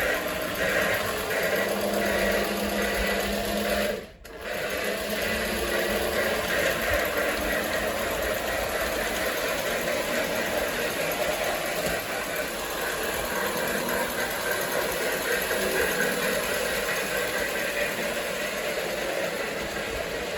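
Marx three-rail toy electric train running, with the whir of its mechanism and the steam-chuff effect of the Marx Sound-O-Power system. The sound cuts out briefly about four seconds in, then carries on steadily.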